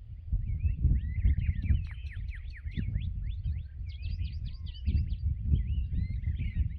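Dawn chorus of several songbirds singing at once: quick chirps, slurred whistles and fast trilled series overlapping without pause, over a steady low rumble.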